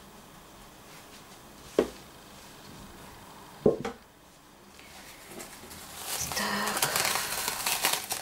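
Two sharp knocks a couple of seconds apart, then from about five seconds in a rising crinkling rustle of thin plastic film being handled.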